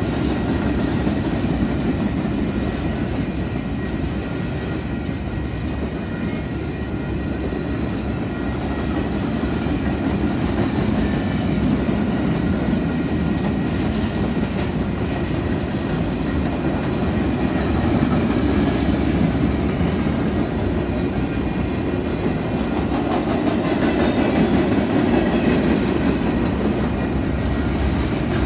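Freight cars, centerbeam flatcars and then boxcars, rolling past on their steel wheels over the rails. The noise is a steady, unbroken rumble.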